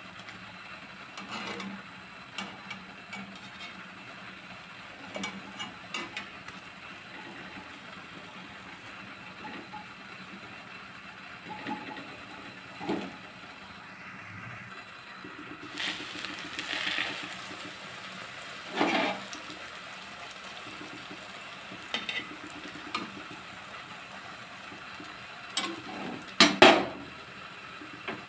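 Bread slices frying in hot oil in a metal kadai: a low sizzle that thickens a little past halfway. Scattered clinks and scrapes of metal tongs against the pan come through it, with a louder metal clatter near the end.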